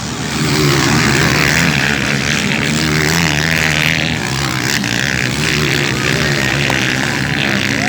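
Motocross motorcycle engines running hard, their pitch rising and falling as the riders work the throttle.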